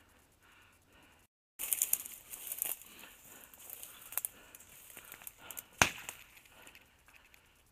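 Dry grass and brittle brush crackling and snapping as someone pushes through it on foot, with irregular sharp snaps and one sharp crack about six seconds in. The sound cuts out briefly a little over a second in.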